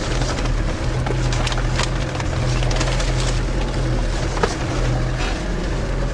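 Land Rover Defender 90's 300Tdi four-cylinder turbodiesel running steadily, heard from inside the cabin, with a few sharp knocks over the engine drone.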